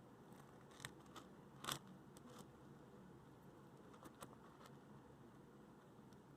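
Hedgehog moving about in its cage: faint scattered clicks and light scratches, the loudest about a second and a half in, over near silence.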